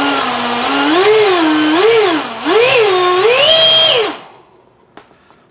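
Electric ducted fan of an RC SR-71 model jet running with a loud whine, steady at first, then throttled up and down about four times so the pitch rises and falls, before spooling down about four seconds in. Only one of the model's two fans is running; the other is dead.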